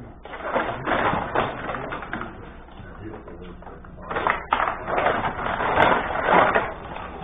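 Benej rod hockey table in play: a rapid clatter of knocks and rattles from the rods, the plastic players and the puck, in two busy flurries, one in the first couple of seconds and a louder one from about four seconds in.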